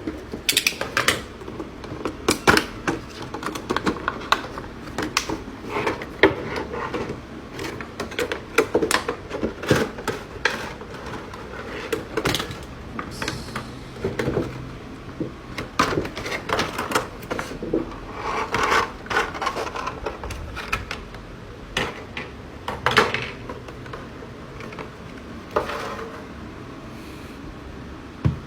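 Packaging of a boxed vinyl collectible figure being opened and handled by hand: a long run of irregular clicks, scrapes and rustles of cardboard and plastic.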